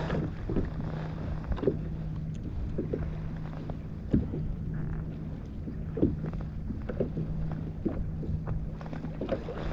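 Small waves slapping against a plastic kayak hull as it rocks at anchor, with short knocks every second or so over low wind rumble on the microphone. A faint steady low hum runs underneath and drops out briefly a few times.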